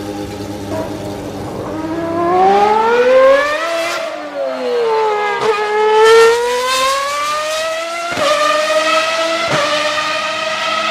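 Formula One car engine, a steady note at first, then revving higher about two seconds in, easing off, and climbing again. Near the end it goes through two quick upshifts, each a sudden drop in pitch.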